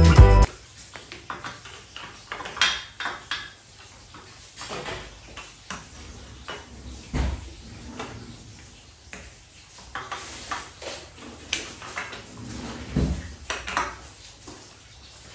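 Jingling music cuts off half a second in; then plastic LEGO DUPLO bricks are handled and set down on a table, with scattered clicks and clacks at irregular intervals and a few louder knocks.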